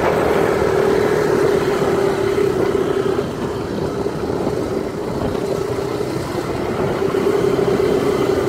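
Motorcycle engine running at a steady riding speed, heard from the rider's seat together with road noise. It eases off a little midway and picks up again after about seven seconds.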